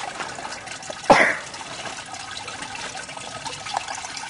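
Pressed Petite Sirah juice trickling steadily from a cider press into a bucket. About a second in there is one short, loud burst.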